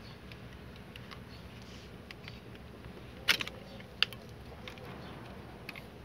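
Plastic wire-harness connectors being unplugged from a Korting washing machine's control board: a few sharp clicks, the loudest about three seconds in and another a moment later, with fainter ticks of plastic handling between them.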